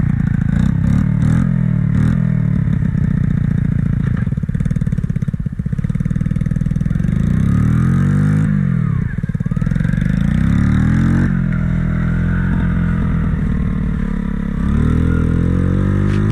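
Pantera 50 pit bike engine running and being revved up and down, its pitch rising and falling several times through the middle and climbing again near the end.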